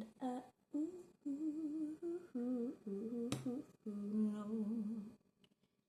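A woman humming a melody in short phrases, with one sharp click a little over three seconds in.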